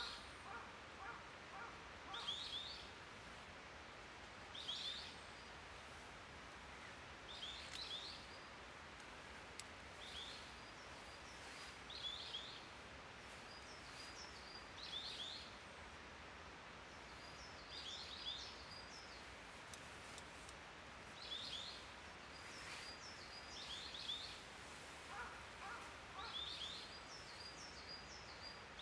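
Forest songbirds singing: one bird repeats a short phrase about every two and a half seconds, another adds high, thin notes in between, over a faint steady hiss of outdoor background.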